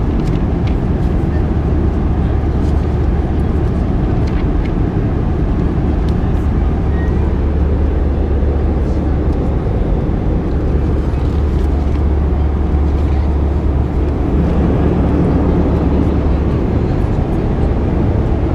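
Airbus A320 cabin noise in cruise: a steady, loud roar of engine and airflow, heaviest in the low rumble.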